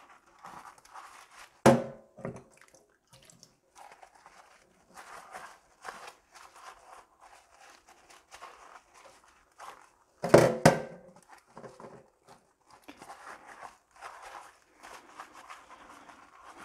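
A soapy mesh scourer rubbing stainless steel egg-poaching cups by hand, with two louder metal knocks, about two seconds in and about ten seconds in, as cups are set down on the stainless steel sink floor.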